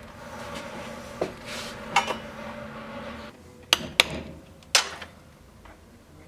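A hammer tapping a punching tool into leather laid on a wooden board: five sharp knocks, spread irregularly, two of them close together past the middle. A steady hum underneath cuts off about halfway.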